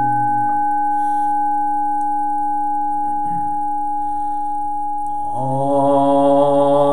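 A temple bowl bell rings on with a few steady, clear tones, one of them fading out about five seconds in. A man's chanting voice breaks off about half a second in and resumes about five seconds in, over the bell.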